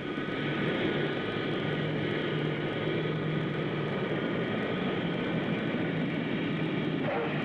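Four-engine C-141 Starlifter jet transport landing: the turbofan engines give a steady high whine over a dense rumble.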